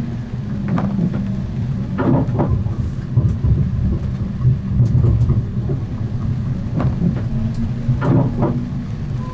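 Siemens Avenio low-floor tram running along the track: a steady low rumble with scattered knocks and clacks from the running gear.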